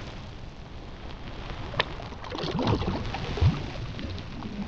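Shallow river water running, with splashing in the second half as a coho salmon held by the tail is let go into the current, loudest about three and a half seconds in.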